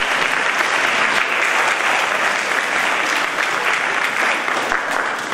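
Audience of students applauding: a steady round of clapping.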